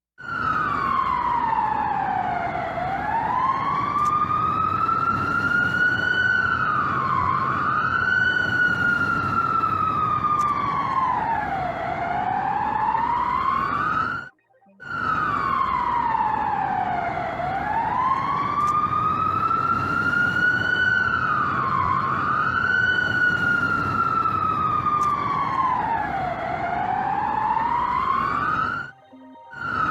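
Emergency-alert warning siren wailing: one slow pitch sweep falls, rises, dips briefly at the top, falls and rises again over about 14 seconds, then cuts off and repeats once. A low rumbling noise runs underneath.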